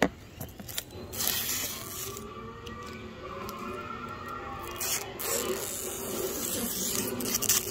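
Clear protective plastic film being peeled off a plastic hockey helmet shell: a long tearing hiss about a second in, then rustling with short crackles near the middle and near the end.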